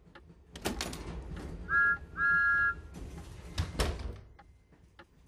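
A door is opened, a train whistle gives two short toots at a steady pitch, and then, after a short hiss, the door bangs shut. A clock ticks faintly near the end.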